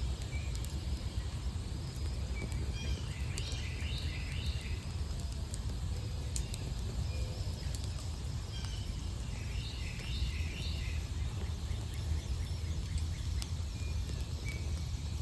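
A Carolina wren sings two short bouts of quick repeated phrases, a few seconds apart, over a wood fire that crackles with scattered small pops, with a steady low rumble underneath.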